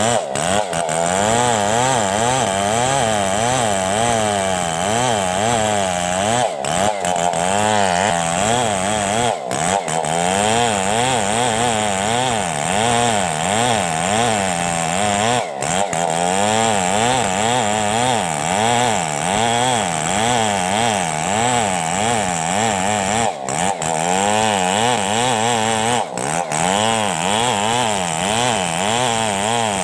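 Chainsaw running under load, ripping lengthwise through a coconut palm log. Its engine pitch wavers up and down about once a second, with a few short breaks.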